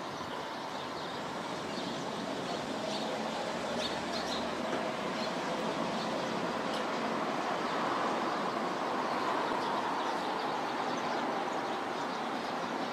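Distant jet noise from an F-35A's single turbofan engine on landing approach: a steady rushing sound that grows louder to a peak about two-thirds of the way through, then eases slightly lower in pitch.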